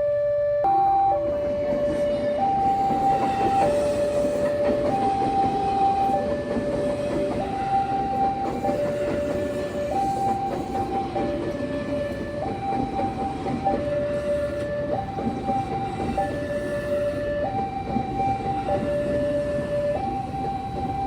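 Railway level-crossing warning alarm sounding a two-tone hi-lo signal, each tone held about a second. From about a second in, a passing train adds a steady rumble of wheels on rails.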